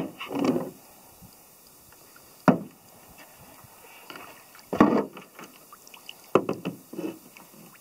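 Four sharp knocks on a canoe hull, a second or two apart, with small splashes of water between them.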